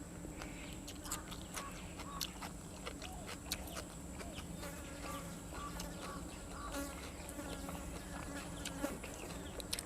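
Close-up eating sounds: scattered sharp clicks of chewing and mouth noises, over a steady high insect drone.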